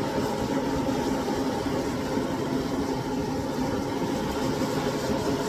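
A steady, even engine-like hum, running without change.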